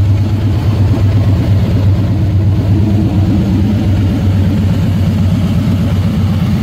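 V-twin cruiser motorcycle engine idling steadily, a low pulsing rumble with no revving.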